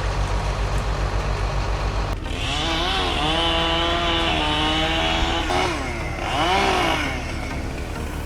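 Two-stroke chainsaw revving up to full throttle and holding, easing off, then revving briefly again before dropping back. For the first two seconds a low, even engine throb comes before it.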